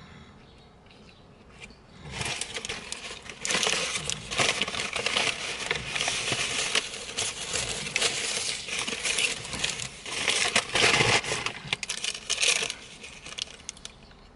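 Paper crinkling and rustling in the hands as a paper napkin is wiped over the mouth and crumpled. It starts about two seconds in, comes in uneven crackling bursts, and dies away near the end.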